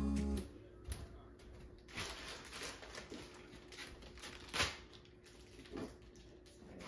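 Background music cuts off just after the start; then scattered light clicks and knocks of household items being handled and set down, the loudest about four and a half seconds in, over a faint steady hum.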